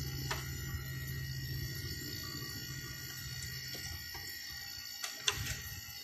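Whirlpool 5000 BTU window air conditioner running, a steady low hum and air rush from its fan, which is slow and weak even after a new capacitor. The low hum fades about four seconds in, and a few clicks come about five seconds in.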